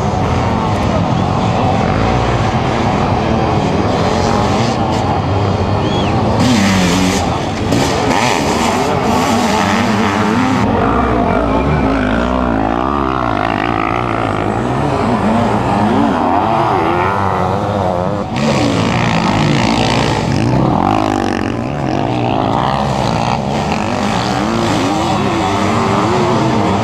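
Sidecar motocross outfits' engines racing at high revs, several at once, their pitch rising and falling constantly as they accelerate and shift around the dirt track.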